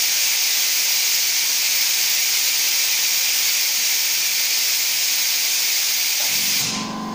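ACF bonding machine's cooling air blowing onto the bonding head: a loud, steady hiss that cuts off suddenly about six and a half seconds in. It cools the freshly bonded COF IC at the end of the glass-side bonding cycle. A low machine hum remains after it stops.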